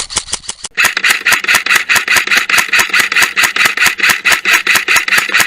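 Airsoft gun firing in rapid sustained fire: a fast, even stream of sharp snapping shots, about seven a second.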